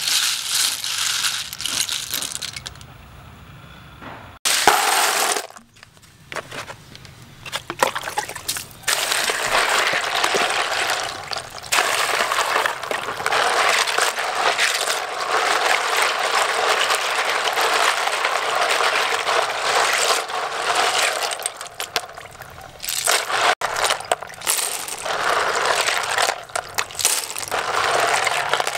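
Small snail shells clattering and clinking against one another and the plastic colander as hands stir them, then swished and rubbed by hand in a basin of water, with splashing and shells clinking.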